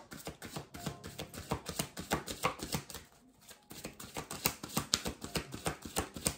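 A deck of oracle cards being shuffled by hand: quick, close-set card slaps and flicks, with a short pause about three seconds in.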